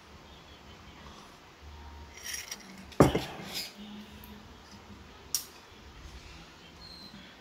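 A ceramic mug set down on a hard surface with a sharp clunk about three seconds in. Softer clinks of handling come just before it, and there is one light clink about two seconds later.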